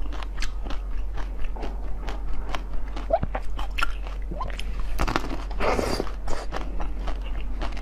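Close-miked eating: repeated crisp crunching bites and chewing of food, with a longer, denser crunch about six seconds in.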